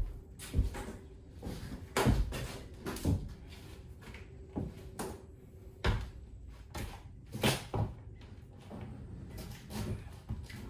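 Glued-down plywood floor board being pried and ripped up from a bus floor with a pry bar: a string of irregular sharp cracks and knocks as the wood and glue let go.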